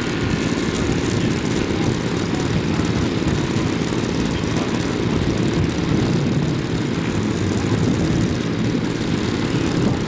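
A model aircraft engine droning in the air, heard under a steady low rumble.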